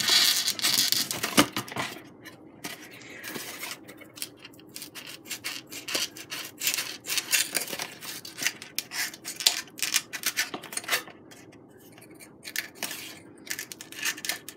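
Foam board rubbing and scraping as a foam canard is worked through the slots cut in a foam board fuselage. It comes as a run of short, irregular scrapes and clicks, loudest in the first couple of seconds.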